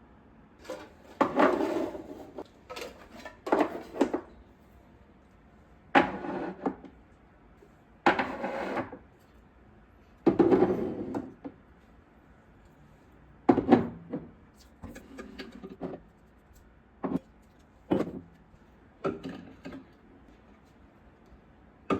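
Household items being handled and set down one after another: a dozen or so separate knocks, clunks and short scraping or rustling sounds.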